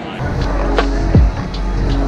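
Background music coming in just after the start, with a heavy bass line, sharp percussion hits and a deep bass sweep falling in pitch.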